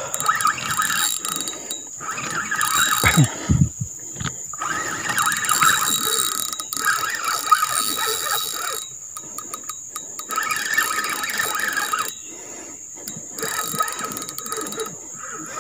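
Spinning reel being cranked to bring in a hooked fish, its gears ratcheting with a rapid clicking. The winding stops briefly a few times.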